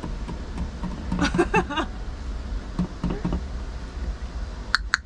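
Aluminium beer can's ring-pull being worked: a few sharp clicks in quick succession near the end, over a low steady hum.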